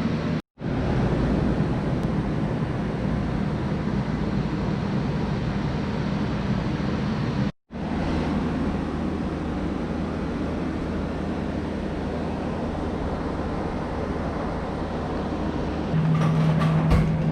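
Steady running noise of a vehicle in motion, with a low hum under it. It cuts out abruptly twice for a moment.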